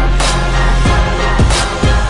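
Loud music track with a steady thumping beat.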